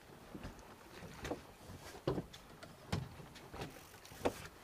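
Irregular knocks and thumps on a fishing boat, about six in four seconds, the loudest about two seconds in and near the end.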